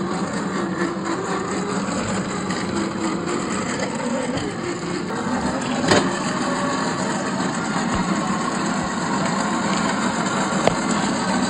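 1/10-scale RC crawler's electric motor and gear drive running steadily, its pitch wavering with the throttle. A sharp click comes about six seconds in and another near the end.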